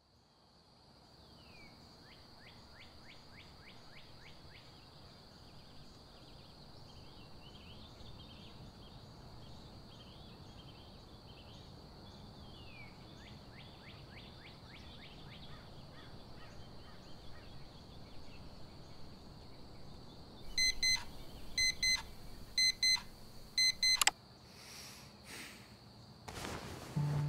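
Faint birdsong ambience with short chirps. About twenty seconds in, a digital alarm clock beeps in quick pairs for about three seconds and is then cut off by a click as it is switched off.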